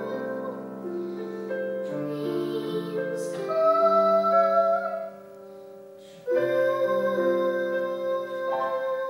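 A female voice singing held notes over piano accompaniment. The music drops back for about a second, five seconds in, then resumes with a long sustained note.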